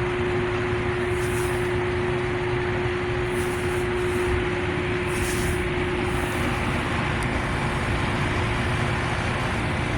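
Fostoria 15 kW three-phase electric floor heater running on low, its fan blowing a steady rush of air. A steady hum fades out about six seconds in.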